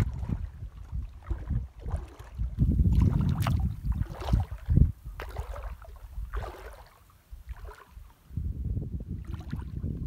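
Wind buffeting the microphone in uneven gusts, a low rumble that swells and drops and nearly dies away about three-quarters of the way through. A few short sharp sounds cut through it, such as small splashes of shallow water.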